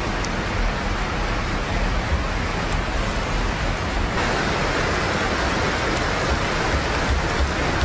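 Meat roasting on sticks over an open wood fire, sizzling: a dense, steady hiss with fine crackles, growing brighter about four seconds in.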